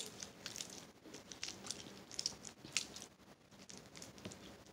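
Orange slime being kneaded and stretched between the hands, making irregular small sticky clicks and crackles.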